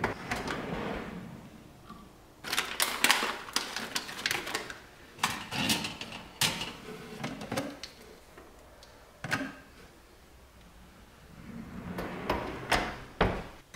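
Wooden kitchen drawers sliding on their runners, one pushed shut at the start and another opened. Items inside rattle and knock as they are handled for a few seconds, then a single knock, and near the end the drawer slides closed with a sharp knock.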